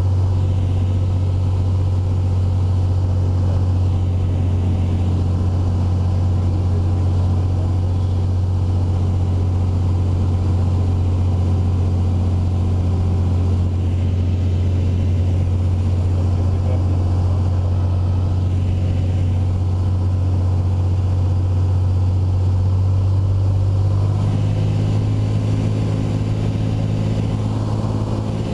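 Single-engine light aircraft's piston engine and propeller droning steadily, heard from inside the cockpit. About 24 seconds in, the tone of the drone shifts.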